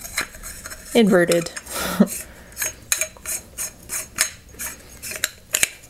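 Metal lightsaber hilt sections clicking and tapping against each other as they are handled and fitted together: a run of light, irregular clicks, a few a second.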